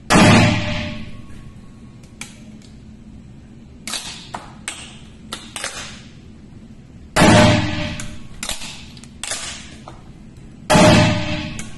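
Three shots from a single-shot break-action shotgun, the first right at the start, the second about 7 seconds in and the third near the end, each with a ringing decay. Between shots come quick metallic clicks and clacks as the action is broken open, the spent shell kicked out by the ejector, a fresh shell loaded and the gun snapped shut.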